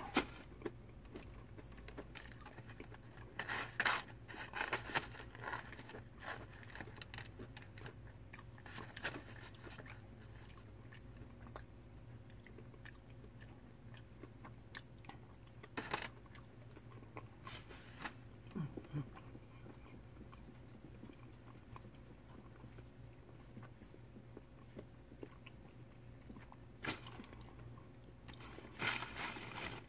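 A person chewing and eating, with scattered short clicks and smacks from mouth and fork. A steady low hum runs underneath.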